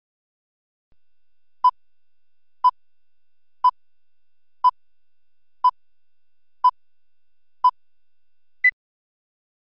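Broadcast time-signal pips: seven short beeps, one a second, then a single higher-pitched beep marking the exact time.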